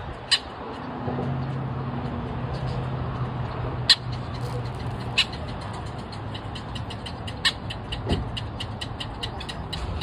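Brewer's blackbirds giving sharp clicking calls: a few single clicks, then a quick regular run of ticks about three a second through the second half. A steady low vehicle engine hum runs underneath.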